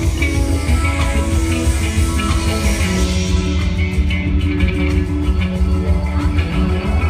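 Live reggae band playing an instrumental passage: electric guitar, keyboards, bass guitar and drum kit, with a strong bass line and no vocals.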